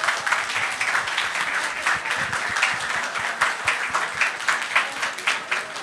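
Audience applauding: many hands clapping steadily, dying down near the end.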